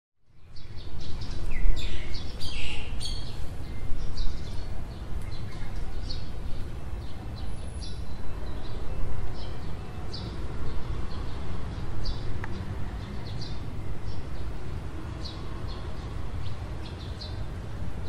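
Birds calling in the trees: short high chirps repeated every second or so, busiest and loudest in the first few seconds, over a steady low rumble.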